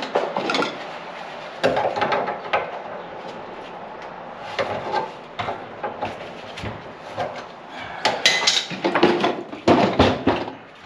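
Irregular clattering and knocking of tools and a plastic bucket being handled in a sink cabinet, with the loudest burst of clatter near the end as the bucket is lifted up under the drain trap.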